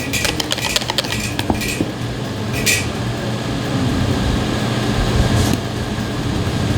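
Spoon tapping and scraping against a bowl and cups as ube puto batter is spooned into a muffin pan: a quick run of small clicks at first, then a few single taps, over a steady low hum.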